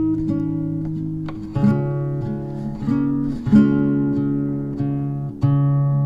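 Background music on acoustic guitar: plucked and strummed chords with a new chord struck every second or so.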